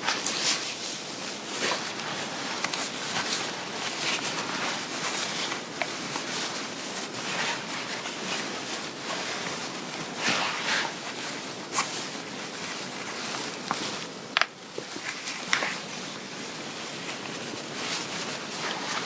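Fabric rustling and rubbing in irregular strokes, with a few short, sharper scrapes, as a dress is handled and adjusted.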